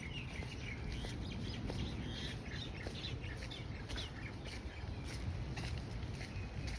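Birds chirping and calling in short repeated notes over a steady low rumble of surf.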